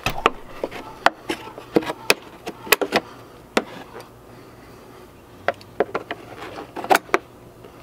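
A string of irregular sharp snaps and cracks of hard black plastic as nippers bite into and cut away part of a condenser fan shroud's flange.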